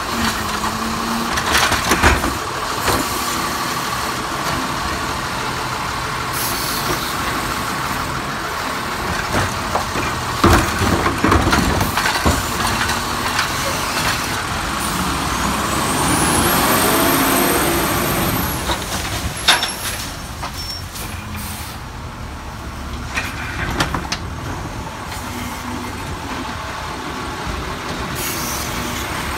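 Automated side-loader garbage truck working a curbside cart pickup: the diesel engine runs steadily while the hydraulic arm whines as it lifts, and there are sharp clanks as the arm grabs, tips and sets down the wheeled plastic cart. There are a couple of short air hisses.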